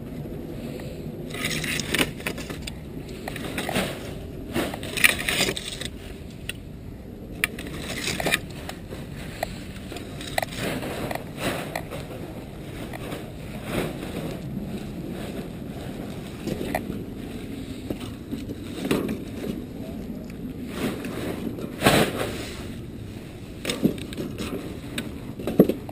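Dry scrap wood pieces clattering and knocking together as kindling is gathered from a pile and handled into a metal mesh fire pit: irregular sharp knocks, one of the loudest about four seconds before the end, over a steady low rumble.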